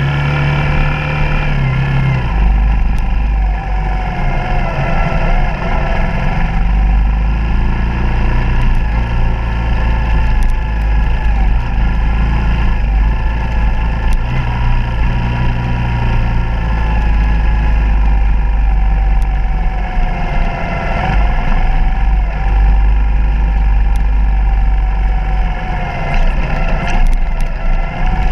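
Suzuki DR200's single-cylinder four-stroke engine running while the bike is ridden along a trail, its pitch rising and falling gently with the throttle. A heavy low rumble of wind on the microphone runs under it.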